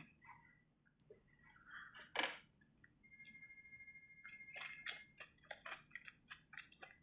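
Faint chewing of a mouthful of rice and chicken, with small scattered clicks and wet smacks.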